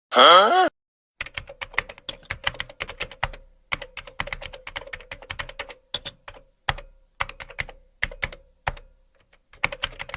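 Fast typing on a computer keyboard: runs of rapid key clicks broken by short pauses. It is opened by a brief, loud pitched sound with a wavering pitch lasting under a second.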